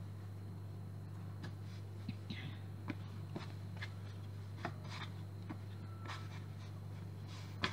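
Light kitchen handling sounds: scattered small clicks, taps and scrapes, with a sharper tap near the end, over a steady low hum.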